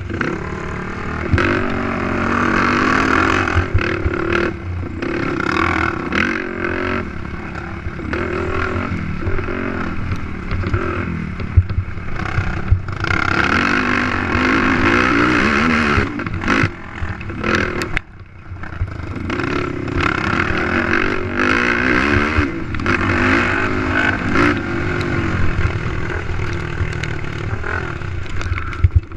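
Race ATV's engine revving up and down hard under changing throttle over a rough dirt track, with clatter and knocks from the quad over the bumps. The throttle is briefly shut off about eighteen seconds in, then opened again.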